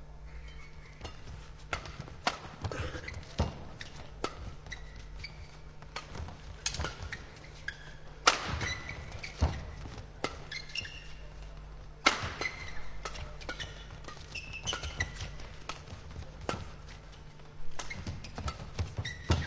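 Badminton doubles rally: rackets striking the shuttlecock in a fast, irregular series of sharp smacks, a few much louder than the rest, mixed with players' footwork and short shoe squeaks on the court.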